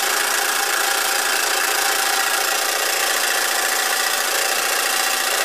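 1906 Fritz Neumeier toy live-steam engine running steadily under steam and driving a pair of old Bing model steam hammers. It makes a dense, even hiss and mechanical clatter with no change in pace.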